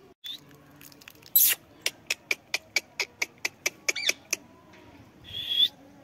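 A quick run of about a dozen sharp clicks, about five a second, after a short loud burst, then an Indian ringneck parrot gives a short harsh squawk near the end.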